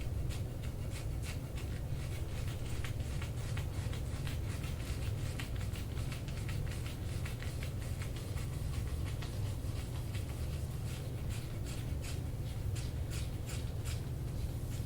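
Hands rubbing and working over a patient's skin in soft-tissue massage, giving soft, irregular scratchy friction sounds a few times a second, over a steady low hum.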